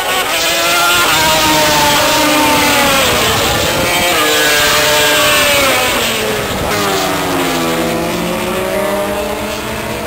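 Racing motorcycle engines passing at speed, their pitch climbing and dropping several times as the bikes rev through the gears. Loudest in the first half.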